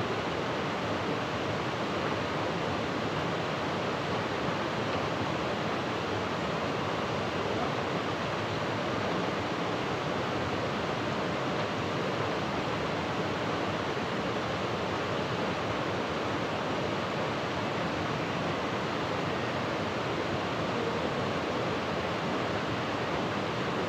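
Steady, unbroken rushing of water, an even hiss that does not change.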